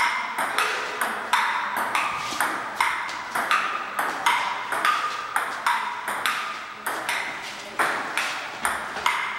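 Table tennis rally: a celluloid ball clicking back and forth off paddles and a painted wooden table, about three hits a second, each with a short ring. The rally runs on until near the end, when the hits stop.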